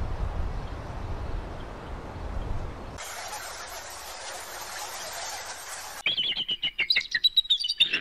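Several seconds of steady hissing noise, with a low rumble for the first three seconds. About six seconds in, a rapid series of loud, high chirping calls begins.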